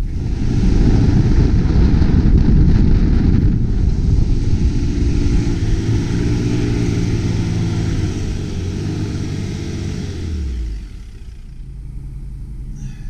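Four-wheel-drive's engine working hard under load as it climbs a steep soft-sand dune, heard from inside the cabin, with a loud rushing noise over the engine. About ten and a half seconds in, the engine note drops and the noise eases as the vehicle nears the top.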